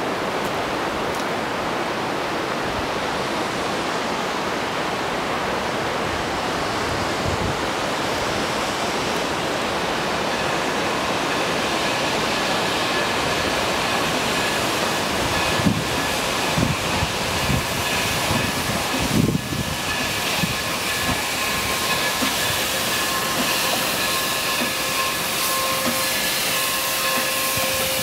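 Durango & Silverton narrow-gauge steam train approaching slowly to stop, heard over a steady rushing noise. A thin, steady squeal of several tones joins about a third of the way in and grows louder toward the end as the locomotive draws near, with a few short knocks near the middle.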